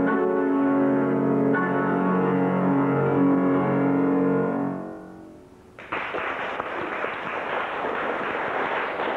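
Closing held chords of a classical piece on a grand piano fade away. About six seconds in, audience applause breaks out suddenly.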